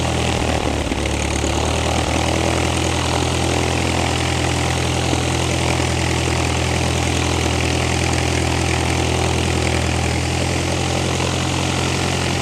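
Piper Cherokee light aircraft's piston engine idling steadily on the ground, its propeller turning.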